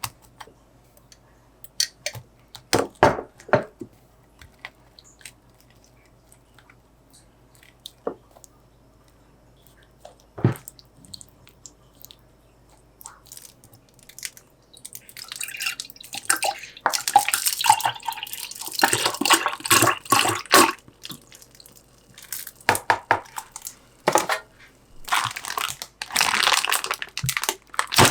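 Kitchen food-prep sounds: a few light knocks and clinks at first, then from about halfway repeated runs of splashing water with short breaks between them.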